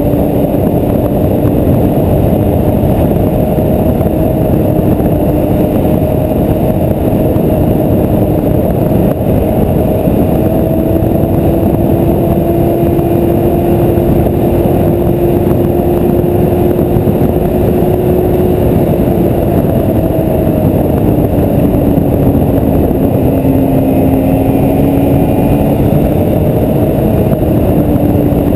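Snowmobile engine running at a steady cruising pace, its pitch drifting slowly up and down with small throttle changes, over a loud continuous rushing noise.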